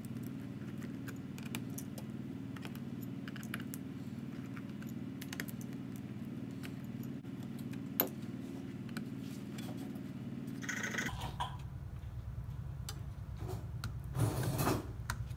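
Small clicks and taps of a screwdriver working the screws out of a 2013 MacBook Air's aluminium bottom case, with one sharper click about eight seconds in and a burst of handling noise near the end as the case is off and the battery is disconnected. A steady low hum runs underneath.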